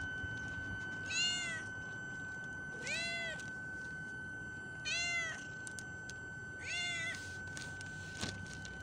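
Young stray tabby cat meowing four times, about every two seconds, each meow rising then falling in pitch; the first is the loudest. A steady high-pitched whine runs underneath.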